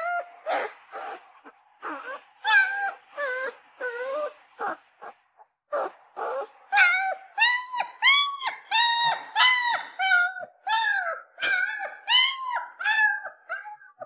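Puppy crying: a long string of short, high whimpering cries, each rising and then falling in pitch. The cries are uneven at first and settle from about halfway through into a steady run of about two a second.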